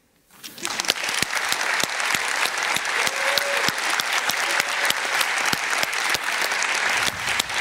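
A large audience applauding: many hands clapping, rising quickly just after the start and then holding steady.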